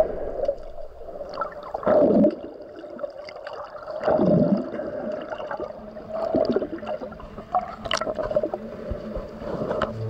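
Seawater sloshing and bubbling, heard from just below the surface, as swell washes against a bridge pillar. It comes in surges about two seconds apart, with small bubbly clicks between them.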